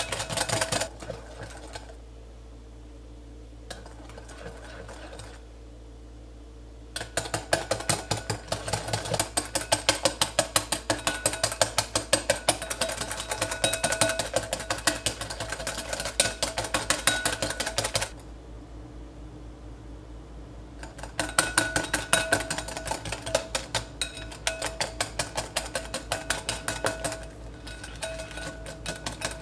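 Wire whisk beating dalgona coffee (instant coffee, sugar and hot water) by hand in a glass bowl: a rapid clicking and scraping of the wires against the glass. It pauses for a few seconds near the start and again past the middle, then picks up again.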